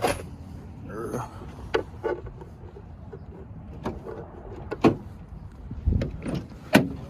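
Irregular sharp knocks and clicks, about seven spread over several seconds, the loudest near the middle and near the end, over a low rumble, with faint mumbling early on.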